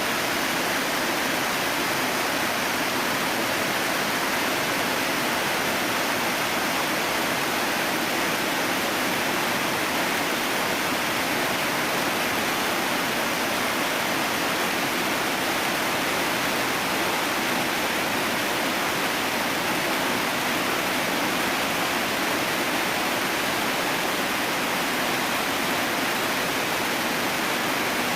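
Waterfall rushing steadily: a constant, even noise of falling water that does not change.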